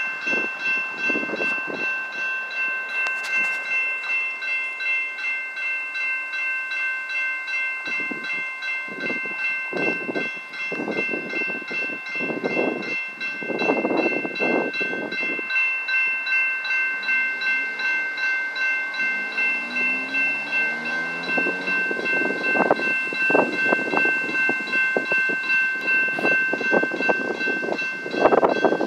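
Railroad crossing warning bell ringing steadily in even, rapid strokes: the crossing is activated for an approaching light-rail train. Road traffic swells past, and a vehicle accelerates through its gears midway.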